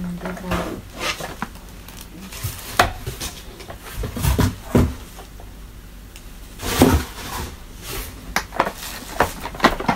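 Hard plastic clattering and knocking with rustling of cardboard and packaging, as parts of a new Samsung canister vacuum cleaner are handled and lifted from their box. Scattered sharp knocks, the loudest about three and seven seconds in.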